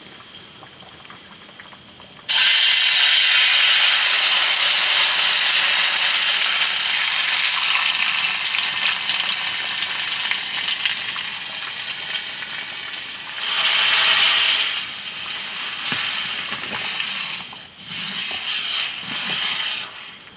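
Food dropped into hot oil in a pan, sizzling loudly all at once about two seconds in, then slowly easing off, with two louder flare-ups later.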